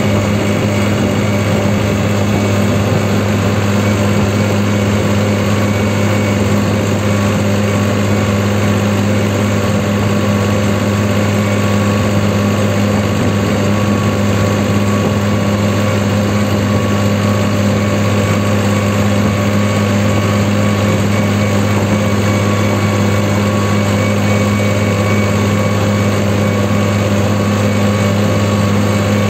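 New Holland 3630 Super Plus tractor's three-cylinder diesel engine running under way at a fixed throttle, an even, unchanging drone heard from the driver's seat.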